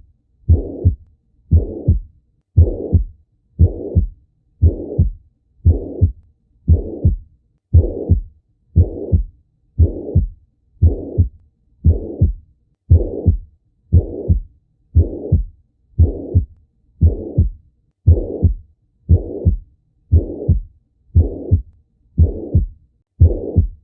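A human heart beating, heard through a stethoscope, at about one beat a second. Each beat is a low thump running straight into a longer rushing sound about half a second long, the pattern of a heart murmur.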